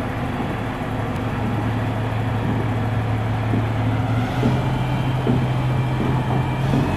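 Bulldozer's diesel engine running steadily, its pitch stepping up about four seconds in as the throttle is raised, then holding at the higher speed.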